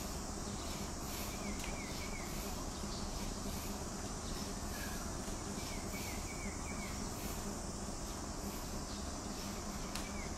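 Steady background hiss with a low hum, and faint short chirps in groups of three or four, a few seconds apart, from small animals outdoors.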